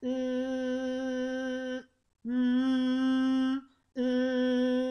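A singer's voice humming a sustained 'M' three times on one steady pitch, with short breaths between. It demonstrates a tense, effortful throat-placed hum against a freer hum placed in the vocal mask, resonating at the nose.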